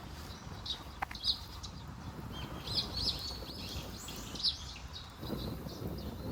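Small wild birds chirping: short, high calls repeated every second or so over a low steady rumble of outdoor background noise.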